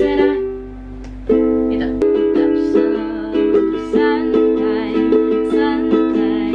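Ukulele being strummed in chords. The strumming stops about half a second in, leaving a single low note ringing, and starts again at a little over a second.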